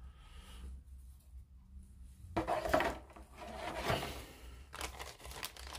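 Thin clear plastic bag rustling and crinkling while a plastic model-kit sprue inside it is handled. It starts about halfway in, and a few light plastic clicks follow near the end.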